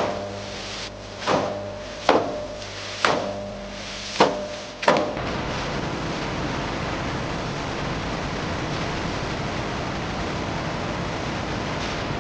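Factory machinery: six sharp clanks roughly a second apart over a steady machine hum, then a steady rushing machine noise for the rest of the time.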